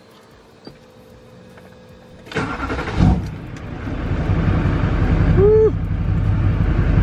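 Duramax 6.6-litre V8 turbodiesel cranked by the starter and firing about two seconds in. It settles into a steady idle, which is its first start on fresh oil after an oil change.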